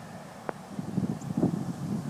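Wind buffeting the microphone in uneven gusts, with one sharp click about half a second in.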